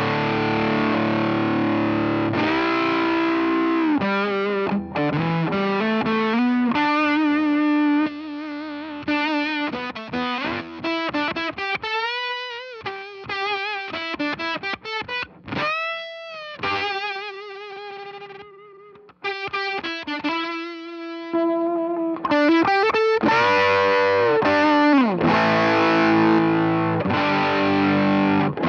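Electric guitar (Fender Stratocaster) played through the SVI Sound Fuzz Genetic fuzz pedal. It starts and ends with thick fuzzed chords, and in between plays single-note lead lines with wide vibrato and string bends. There is a brief drop-out about 19 seconds in.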